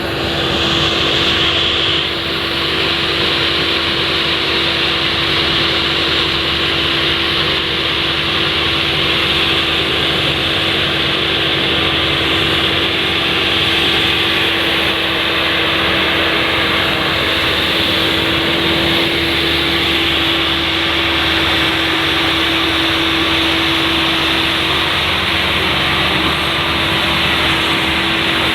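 Rice combine harvester running, a loud steady machine drone with a constant hum.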